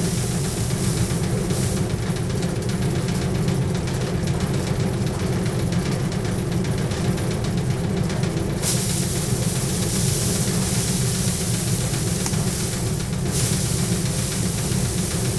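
Paddy thresher running steadily: a constant machine hum under a hiss and rustle of rice stalks being stripped against its spinning wire-toothed drum. The hiss grows brighter about eight and a half seconds in and eases again near the end.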